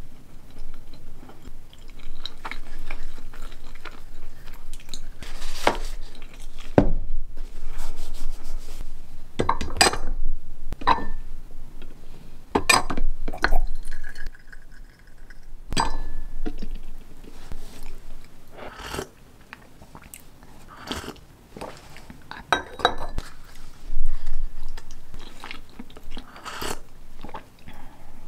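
Close-up eating sounds: chewing a pastry, with its paper wrapper crinkling. Midway, a bottom-dispensing tea infuser releases tea into a porcelain teacup, amid clinks and knocks of cup, saucer and teapot on a wooden tray.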